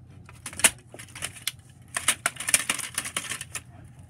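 Sharp clicks and rattling of broken plastic alarm-clock pieces being handled, thickest about halfway through.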